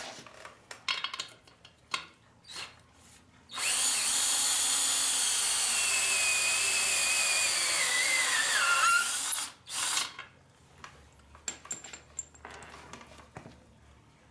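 Power drill running steadily for about five seconds, its whine falling in pitch near the end as it slows, then a short second burst. Light metallic clicks of handling before and after.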